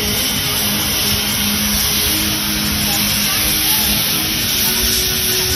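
Steady loud running noise of a narrow-gauge steam train, with a few faint steady tones that come and go.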